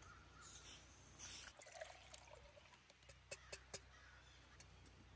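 Metal camp cookware being handled: soft rustling about half a second in and again around a second and a half, then three sharp metal clinks a little over three seconds in as the nesting pot and mug are separated.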